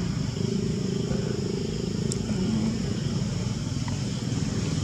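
Steady low rumble of a motor vehicle engine running nearby, with a faint pulsing throb and no change in pitch.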